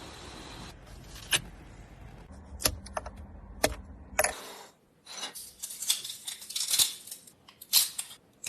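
Small 3D-printed plastic parts clicking and clattering as they are handled: a few separate clicks, then a busier rattle from about halfway. A low background hum cuts off about halfway through.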